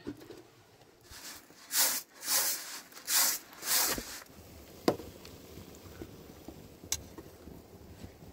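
Rice poured from a metal tray into a basin in four short hissing rushes, followed by two sharp clicks.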